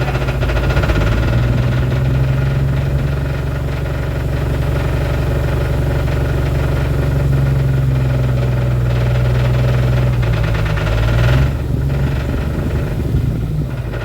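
1997 Jeep Wrangler TJ's 4.0L inline-six idling rough with a loud, distinctive knock, just after a rebuild with new pistons and rings. It runs as if down at least one cylinder. The engine note changes briefly about eleven seconds in.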